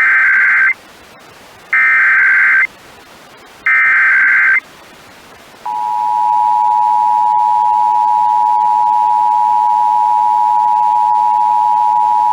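Emergency Alert System signal for a Required Monthly Test. It opens with three short bursts of digital SAME header data, each just under a second long and about two seconds apart, which encode the alert. About six seconds in, the steady two-tone EAS attention signal starts and holds.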